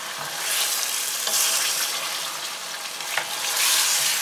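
Whole chicken sizzling in hot oil in a stainless steel pressure cooker while it is turned with wooden spoons. The spoons scrape through the pot, and the sizzle swells twice as the bird is moved. There is a light knock of a spoon against the pot about three seconds in.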